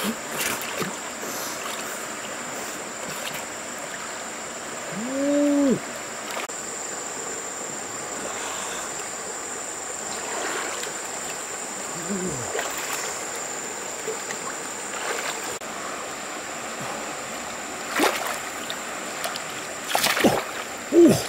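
Shallow river water running and sloshing as a man wades through it, with a steady high whine behind and a short tone that rises and falls about five seconds in. Near the end come loud, sharp splashes as he grabs a large catfish thrashing at the water's edge.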